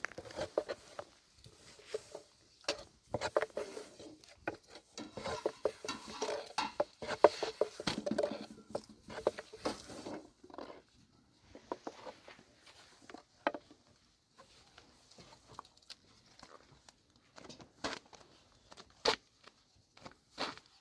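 Irregular light taps, knocks and scraping of handwork: busy for about the first ten seconds, then fewer, scattered knocks.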